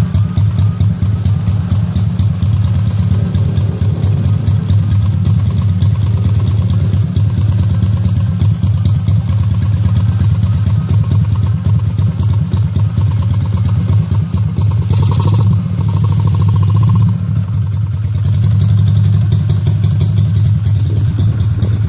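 Honda XRM 125's single-cylinder four-stroke engine running steadily at idle, with a brief sharp sound and a short higher tone about two-thirds of the way through.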